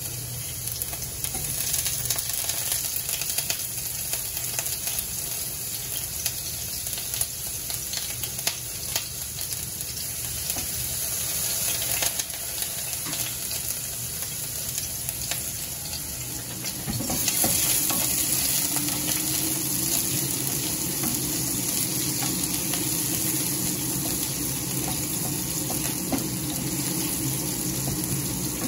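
Sliced shallots sizzling in hot oil in a stainless steel frying pan, with crackles and scraping as a wooden spatula stirs them. The sizzle gets louder a little past halfway through.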